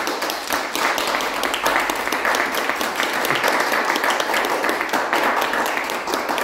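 An audience applauding: many hands clapping together in a dense, steady patter.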